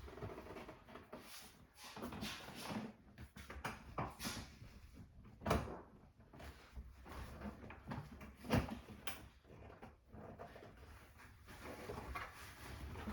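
Plastic parts of a Halloween animatronic being handled and fitted together: scattered clicks, knocks and rustling, with two sharper knocks, one about halfway through and another a few seconds later.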